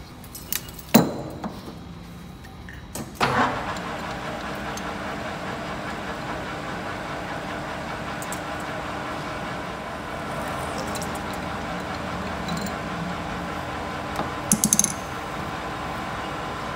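A few sharp metal knocks, then about three seconds in a metal lathe starts and runs steadily with a constant motor hum, turning a round steel workpiece in its chuck. A short burst of clicks comes near the end.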